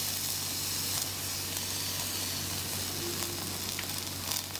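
Oiled flatbread dough sizzling steadily on a hot electric griddle over a constant low hum, with a few faint soft touches near the end as a second sheet of dough is laid on top.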